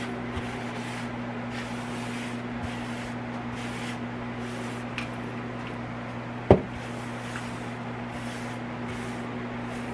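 Paper towel wiping a countertop in repeated short strokes over a steady low hum, with one sharp knock about two-thirds of the way through.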